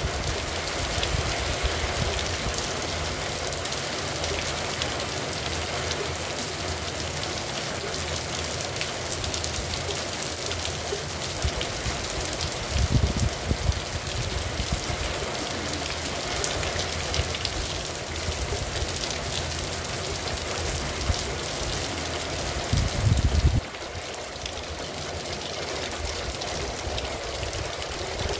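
Steady rain falling on a street and a parked car, an even continuous hiss. Two short low rumbles stand out, about 13 and 23 seconds in, and the low end drops away after the second.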